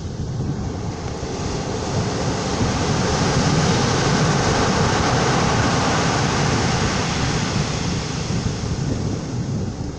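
Ocean surf breaking on a pebble beach: a wave's rush builds about two seconds in, is loudest through the middle and eases off near the end, with wind on the microphone.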